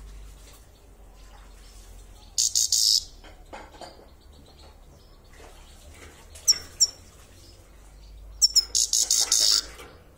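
Grey-crowned goldfinch giving its 'chir chir' call: a burst of rapid high chirps about two and a half seconds in, two short sharp notes around six and a half seconds, then a longer rapid chirping burst near the end.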